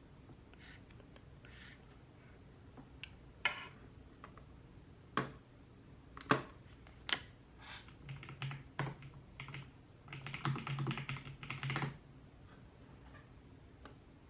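Typing on a computer keyboard: scattered single keystrokes, then a quicker run of typing about two-thirds of the way through that stops abruptly.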